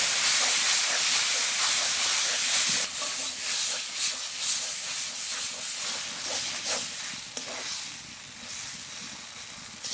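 Chopped matar kalai greens frying in a hot metal wok, a hard steamy sizzle that slowly dies down over the seconds. From about three seconds in, the spatula scrapes and stirs against the pan in short strokes.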